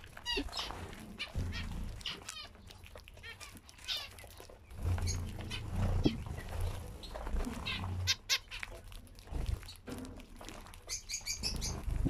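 A flock of zebra finches calling: short nasal chirps, one after another from different birds, with a quick run of song-like chirps near the end. A low rumble comes and goes underneath.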